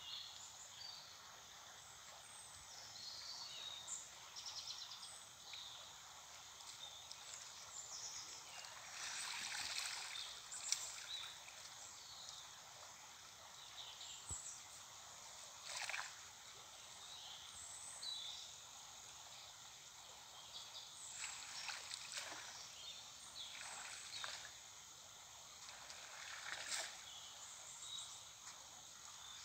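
Faint water sloshing and several short splashes as a cast net is hauled in and handled by someone wading knee-deep, with small birds chirping faintly throughout.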